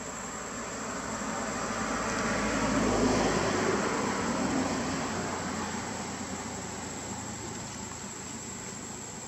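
Distant engine noise passing by: it swells to its loudest about three seconds in, then slowly fades away. A steady high insect trill runs underneath.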